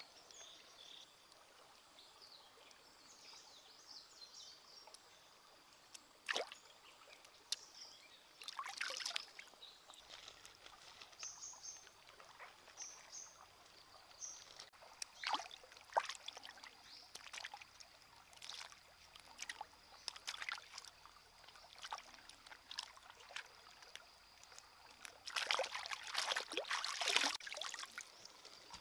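A shallow stream trickling over rocks, with scattered clicks and small splashes from handling, and a dense run of crackles and splashes near the end.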